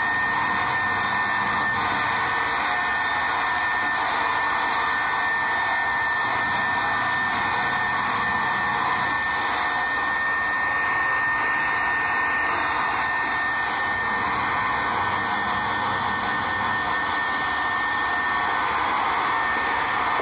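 Handheld hair dryer blowing steadily on a freshly bathed dog's thick wet coat: an even rush of air with a steady high-pitched whine.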